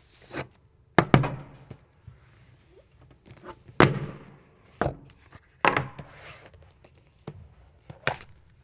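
A folding pocket drone and its cardboard packaging being handled and set down on a tabletop: about five sharp knocks at uneven intervals, with softer taps between them.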